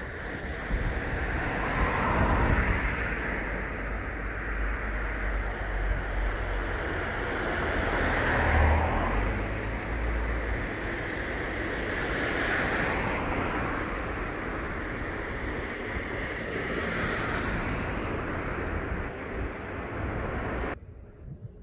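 Outdoor noise of wind buffeting the microphone, with road traffic swelling up and fading away several times. The sound drops off sharply near the end.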